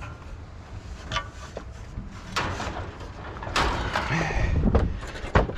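Scrap metal being shifted and dragged in a pickup truck bed: a few sharp knocks and clanks, then a louder stretch of scraping and banging past the middle, and another sharp knock near the end.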